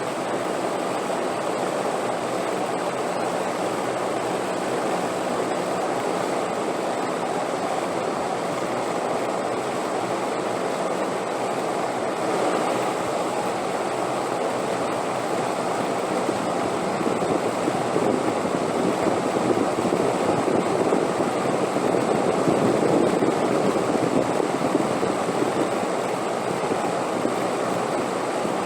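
Wind rushing steadily, swelling into a stronger gust about two-thirds of the way through, then easing off near the end.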